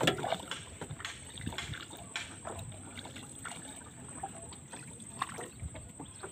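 Water lapping and trickling against a small wooden boat, with scattered light knocks and ticks and a louder knock at the start.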